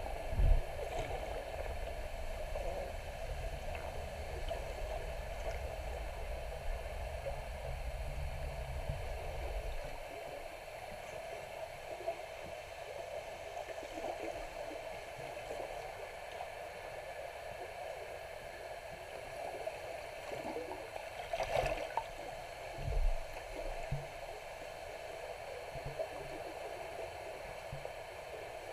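Underwater water noise: a steady wash of moving water heard below the surface, with a low rumble that stops about ten seconds in. A few short dull knocks come near the start and twice more about two-thirds of the way through.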